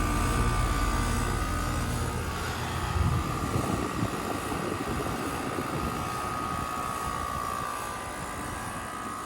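2-ton Carrier Sentry heat pump running in cool mode: a steady fan whir with a constant high whine over it. A low rumble drops away about three seconds in.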